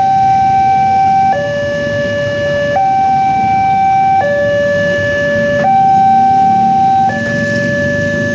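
Railway level-crossing warning siren sounding a slow two-tone hi-lo alarm, alternating between a higher and a lower tone held about a second and a half each. This is the new replacement siren fitted after the old one broke.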